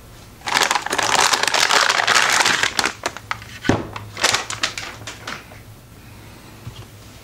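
Metallic anti-static bag crinkling loudly for a couple of seconds as a graphics card is pulled out of it, then a few scattered crackles and a single knock.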